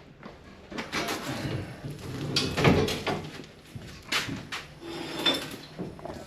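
Irregular knocks, clunks and scraping as heavy HVAC equipment is handled and carried by hand, several separate bumps with the loudest in the middle.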